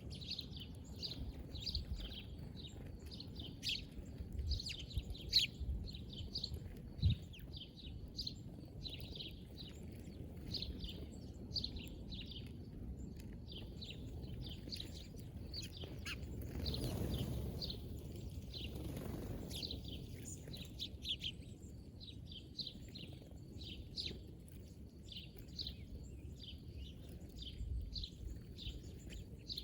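Small birds chirping: many short, high chirps, several a second, with a low background rumble and a swell of noise that rises and fades about halfway through.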